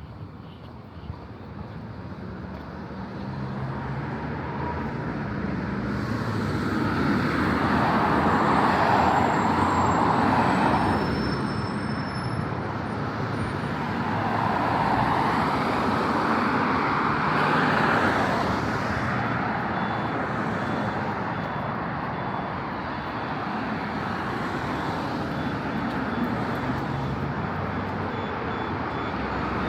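Road traffic on a city street: a steady hum of tyres and engines, with vehicles passing close by, swelling loudest about a third of the way in and again just past halfway.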